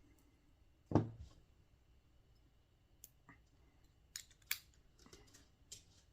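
Small clicks and taps of hand tools and small parts being handled on a workbench, with one louder thud about a second in as something is set down, and a few sharp ticks a little past four seconds.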